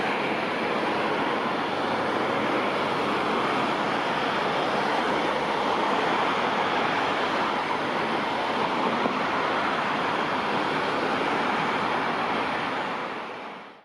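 Steady rushing outdoor background noise with no distinct events, fading out near the end.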